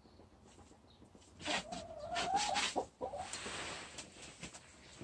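A hen making a drawn-out, wavering wail-like call, followed by a harsher raspy sound of about a second.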